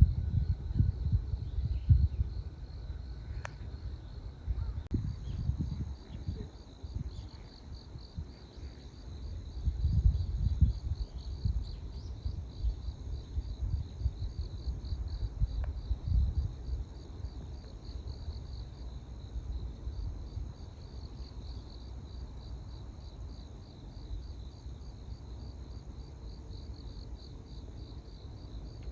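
Insects trilling steadily in a fast, high pulsing chirp, with wind gusting on the microphone. There is a single sharp click about three and a half seconds in.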